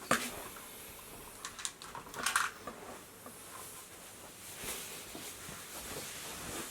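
Handling sounds: a sharp click at the start, a few faint clicks about a second and a half in, then a brief rustle, with scattered quieter knocks after.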